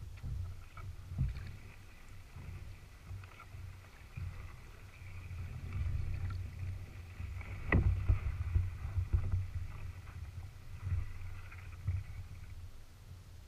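Kayak paddling heard through a camera mounted on the bow: irregular low knocks and rumble of the paddle and water against the hull, loudest around the middle. A steady high buzz runs behind it and stops near the end.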